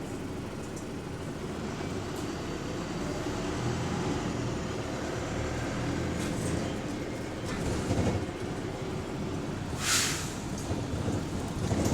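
Single-decker bus engine and road noise heard from inside the saloon, building slightly as it drives, with a short sharp hiss of compressed air about ten seconds in and a few knocks from the body.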